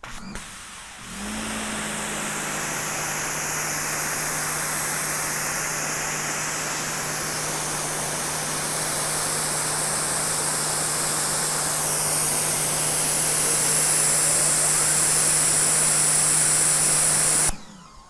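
Sun Joe SPX3000 electric pressure washer spraying through a 40-degree nozzle: the loud hiss of the water jet over a steady hum from the motor and pump. It starts about a second in and cuts off suddenly near the end as the trigger is released.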